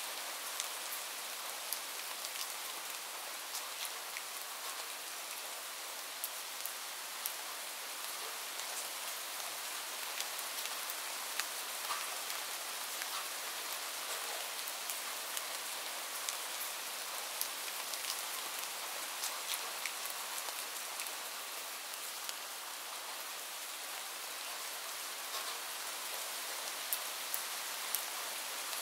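Rain ambience: a steady hiss of rain with scattered sharp drop ticks.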